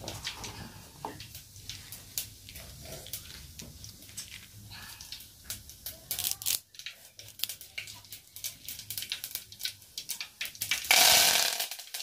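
Soft clicks and small snaps as curry leaves are plucked from their stem by hand, with a faint low hum under the first half. About a second before the end, a loud hiss lasting about a second.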